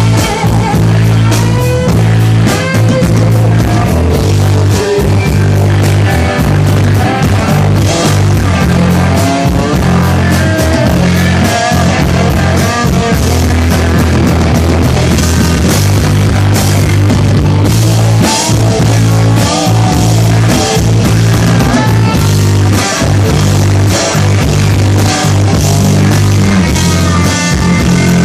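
Live rock band playing loudly: electric guitars over bass and a drum kit, without a break.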